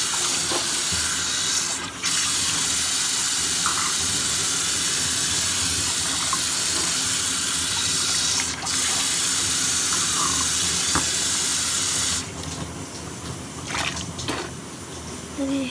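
Water running steadily in a bathroom, a hiss that dips briefly twice and then cuts off about twelve seconds in.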